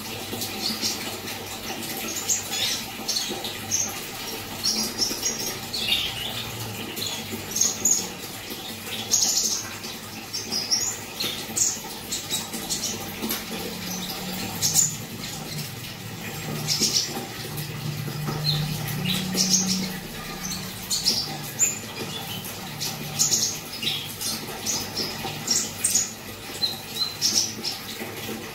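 Konin birds giving short, scattered high chirps over a steady background hiss: lure calls meant to get a young konin singing.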